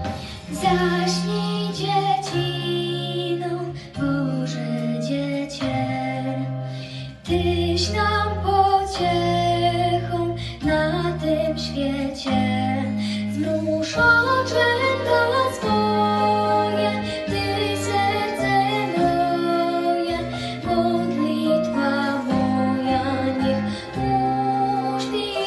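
A young female singer singing a slow Polish lullaby in held notes over an instrumental backing.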